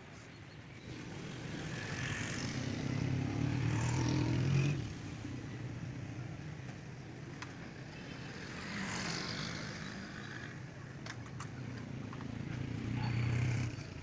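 Motor vehicle engines passing: a low engine sound builds for a few seconds and stops suddenly about five seconds in, then a second one swells and stops suddenly near the end.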